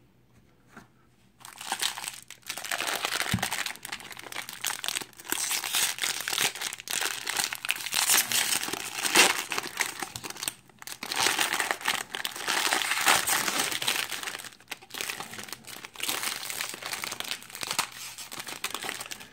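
Wrapper of a 2019 Bowman Draft Super Jumbo trading-card pack being torn open and crinkled by hand. It starts about a second and a half in and goes on in crackling clusters with brief pauses.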